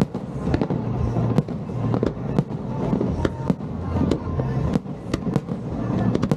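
Aerial firework shells bursting in quick, irregular succession, sharp bangs about two to three a second.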